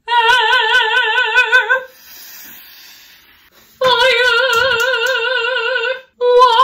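A dramatic soprano singing long held notes with wide operatic vibrato: one held note, a pause of about two seconds, the same note held again, and a third beginning near the end.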